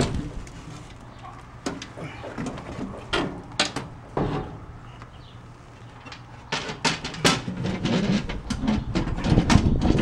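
Steel diamond-plate floor panel being lowered and worked back into its opening: scattered metal knocks and clatters, with boots shifting on the metal floor. The knocks come thicker from about two-thirds of the way in.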